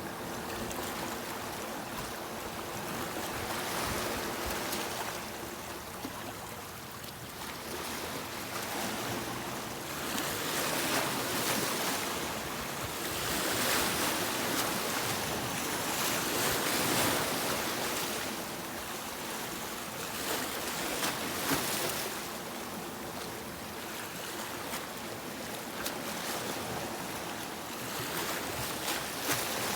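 Sea waves breaking and washing up a beach, the surf swelling and ebbing in slow surges every several seconds.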